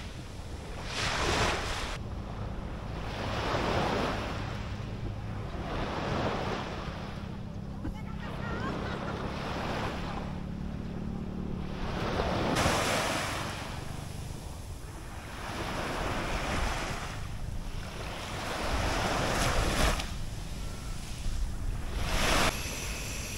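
Small sea waves breaking and washing up the beach, surging and fading every two to three seconds, with wind rumbling on the microphone.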